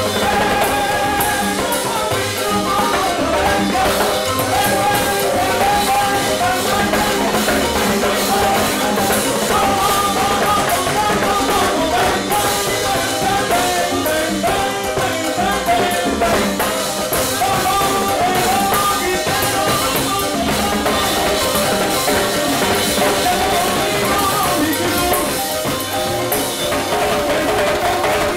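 Live salsa band playing: timbales struck with sticks, congas, upright bass, trombones and drum kit driving a steady groove, with a lead singer's voice over it.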